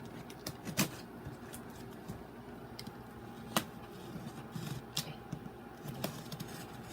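A cardboard box being opened by hand, with the adhesive tape pulled off and the seals broken: scattered sharp clicks and scraping, the loudest about a second in and again a little past halfway.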